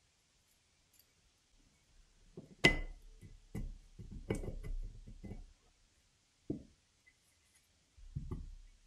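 Motorbike piston and cylinder barrel being handled on a workbench: a sharp metallic clink with a brief ring a little under three seconds in, then a run of knocks and clunks, one more knock, and a last cluster of clunks near the end.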